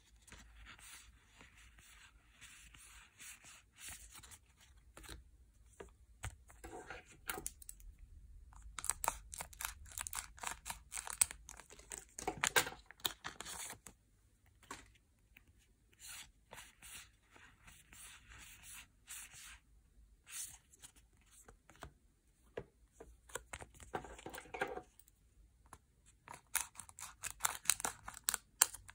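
Yu-Gi-Oh! booster pack foil wrappers being torn open and the packs and cards handled. It comes as short tearing and crinkling rustles and crisp clicks, in clusters with brief pauses.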